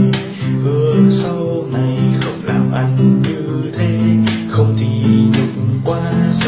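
A man singing in Vietnamese to his own strummed acoustic guitar.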